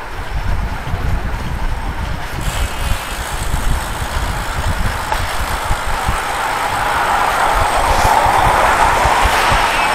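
Wind buffeting the handlebar camera's microphone and tyre noise from a road bike riding over rough, cracked asphalt, a steady rushing sound that grows louder in the second half.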